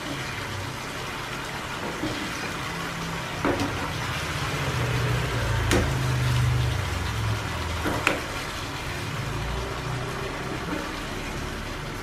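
Tuna steaks sizzling and bubbling in a reducing tamarind fish-sauce glaze in a nonstick pan, with a metal ladle clicking lightly against the pan three times as sauce is spooned over the fish.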